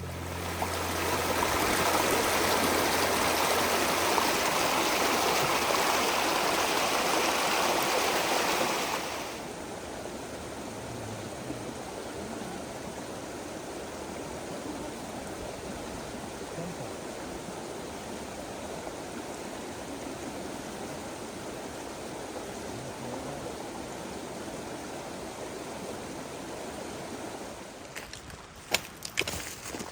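Creek water rushing over a cascade: a loud steady rush that cuts down to a quieter flowing sound about nine seconds in. A few sharp knocks come near the end.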